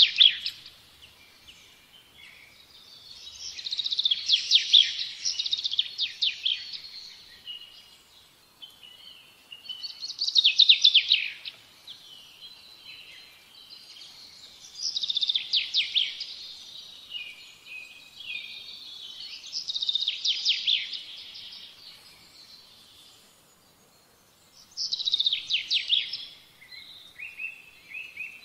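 A songbird singing: about six phrases of fast trilled notes, each a second or two long and ending in a few lower notes, repeated about every five seconds.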